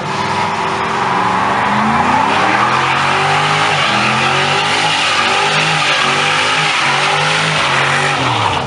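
Ford Mustang GT convertible's V8 held at high revs through a burnout, its rear tyres spinning and squealing on the asphalt. The revs climb at the start, hold wavering, and drop away near the end.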